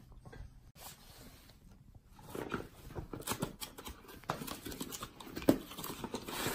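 Cardboard box being handled: its flaps are opened and the contents pulled out, giving a string of rustles, scrapes and clicks that start about two seconds in, with one sharp knock near the end.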